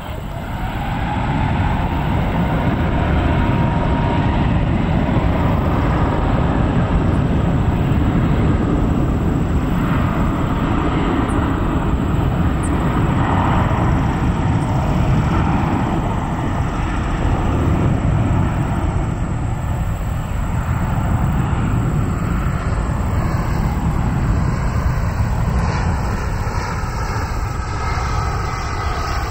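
Jet airliner's engines running at high power, a loud steady rumble that swells about a second in and holds, with a faint whine in the first few seconds.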